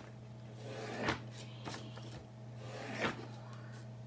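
Quick strokes of a pen drawing lines on paper, three or four short scratches, over a steady low electrical hum.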